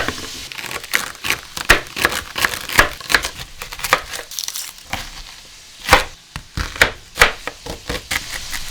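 Kitchen knife chopping celery on a wooden cutting board: sharp, irregular knocks, with a few quick strokes close together.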